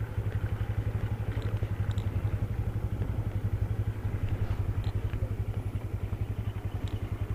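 Yamaha Xeon 125 scooter's single-cylinder engine idling with an even putter of about a dozen pulses a second.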